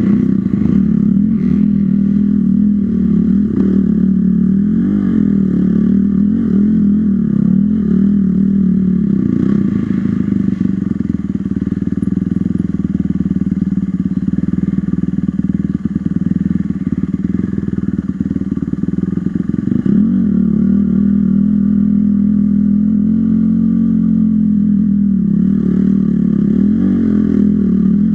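Dirt bike engine running continuously on an off-road trail ride, its pitch rising and falling as the throttle is opened and closed.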